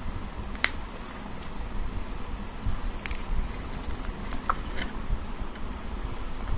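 A few light clicks and handling rustles from craft materials being worked by hand, over a low rumble.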